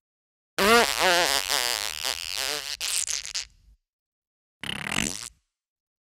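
Two fart sound effects. The first is a long, wobbling fart of about three seconds that trails off. About a second later comes a short one.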